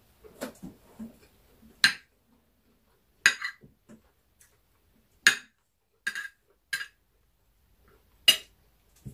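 Metal spoon clinking and scraping against a ceramic plate while scooping rice and stew: about six short, sharp clinks spaced out over several seconds.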